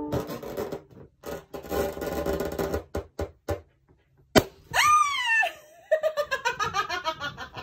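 A child laughing, with a sharp pop about halfway through followed by a high squeal, then a run of quick laughing bursts.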